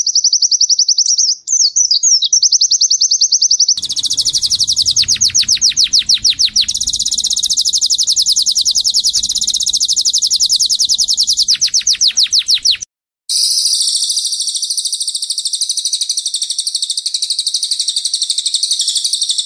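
Cage birds singing long, fast, high-pitched trills, a spliced white-eye and canary training-song compilation. The song changes abruptly to a new recording about four seconds in. It drops out briefly near thirteen seconds before a steady, even trill takes over.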